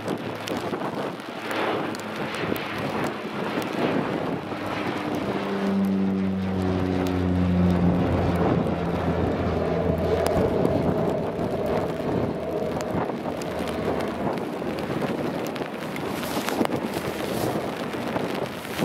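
Turboprop engines of a Dash 8 running on the ground, a propeller hum with several steady tones that swells about five seconds in and holds, over wind buffeting the microphone.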